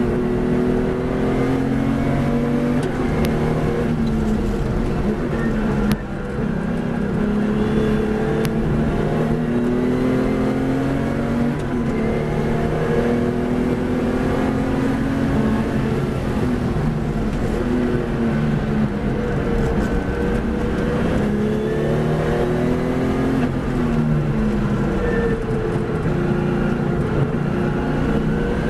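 Race car engine heard from inside the car at full race pace. It revs up through the gears, its pitch climbing and dropping back at each shift, then it slows on the overrun for a corner near the end.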